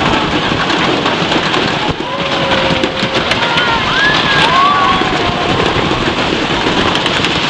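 Steady rushing and splashing of falling water. A few faint calls rise and fall over it near the middle.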